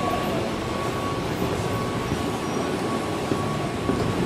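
A moving vehicle running steadily: a loud, even rumble with a faint steady whine over it.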